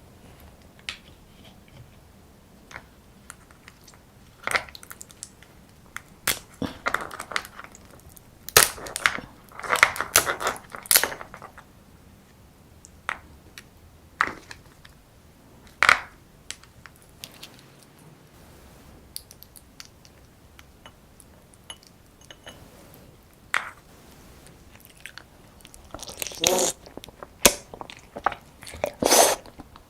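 Close-miked eating of soy-sauce-marinated raw crab: irregular bites and crunches of crab shell with chewing, in clusters that are loudest about nine to eleven seconds in and again near the end.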